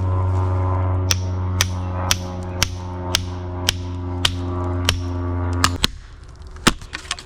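Background music: a sustained low drone with a sharp percussive beat about twice a second, cutting off suddenly about six seconds in. A couple of isolated sharp knocks follow.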